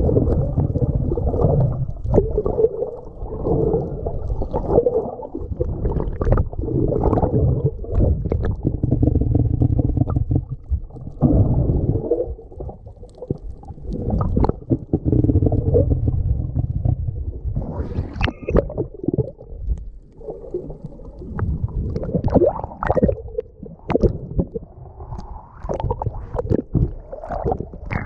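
Muffled underwater noise picked up by an action camera in its waterproof housing: a low rumbling wash of moving water that swells and fades, with scattered clicks and knocks.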